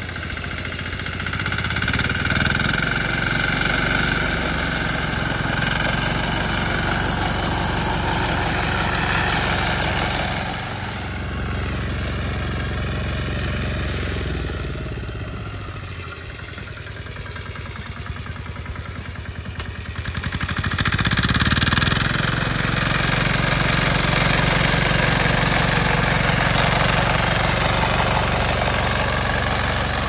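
An engine running steadily, picking up speed about two seconds in, easing off near the middle, then speeding up again about two-thirds of the way through.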